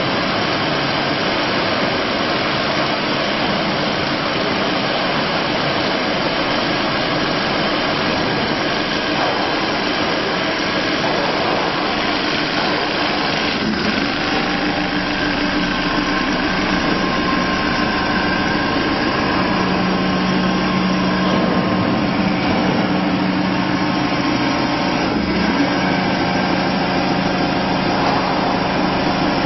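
Computer-controlled single-needle comforter quilting machine running steadily as it sews. A few steady hum tones come in about halfway through.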